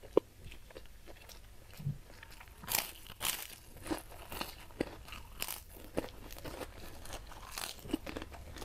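Crisp bites and chewing of a white fried cracker, close-miked: a cluster of loud crunches about three seconds in, then smaller crunches and mouth clicks.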